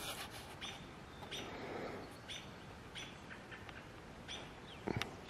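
Small birds chirping in short, high calls repeated about once a second, with a single sharp click near the end.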